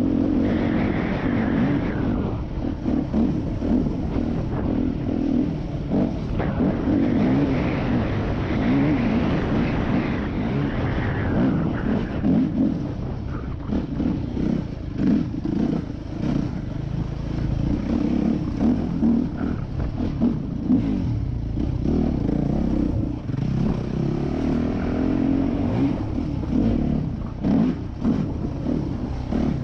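Yamaha YZ250F dirt bike's four-stroke single-cylinder engine running hard under way, its pitch rising and falling as the rider opens and closes the throttle. Short knocks come through throughout, most of them in the second half.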